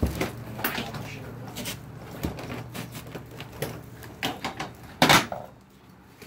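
Scattered knocks and clatter of tools and objects being handled, with one much louder clunk about five seconds in.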